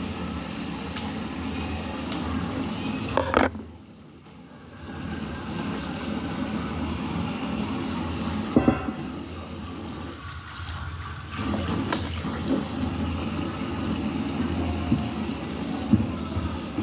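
Tap water running steadily into a sink already full of water, briefly falling away about three and a half seconds in, with a few sharp clicks and knocks from handling the fish at the sink.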